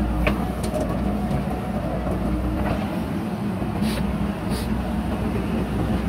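JCB 3DX backhoe loader's diesel engine running steadily under load while the backhoe arm swings down and digs into soil. Two short hisses come about four seconds in.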